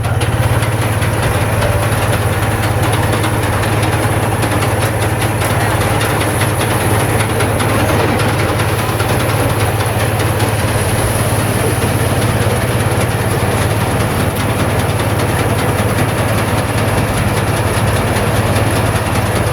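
INARI combine harvester running steadily: a constant low engine drone with a dense mechanical rattle from its working parts.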